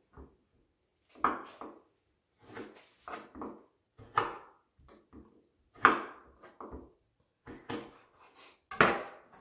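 Kitchen knife cutting calamansi limes in half on a wooden cutting board: a string of short, irregular knocks as the blade goes through the fruit and meets the wood, about one or two a second.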